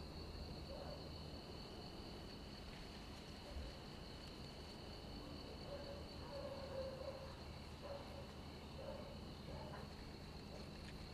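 Faint, steady chirring of night insects, a high continuous trill.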